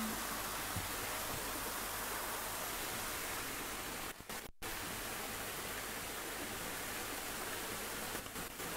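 Steady even hiss of background noise with no voice, just after a chanted note fades out. The hiss drops out briefly twice, about four and eight seconds in.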